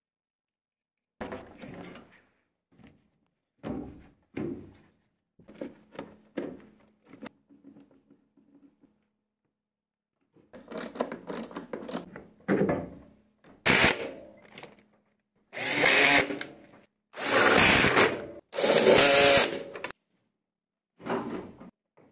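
A power screwdriver running in three bursts, each a second or so long, undoing screws on a washing machine's casing. Earlier come scattered knocks and rattles of tools and parts being handled.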